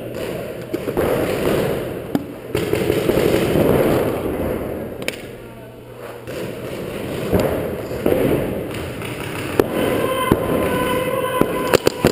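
Paintball markers firing: scattered sharp pops, then a rapid string of shots near the end.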